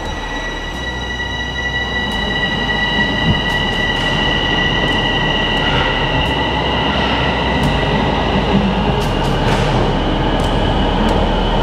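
TTC Line 4 Sheppard subway train pulling out of the station: a steady high-pitched whine over rumbling wheel noise that slowly grows louder, the whine fading out past the middle, with a few sharp clicks near the end.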